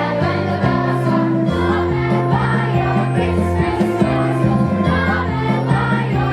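Christmas-style music with a choir singing over a bass line that steps from note to note.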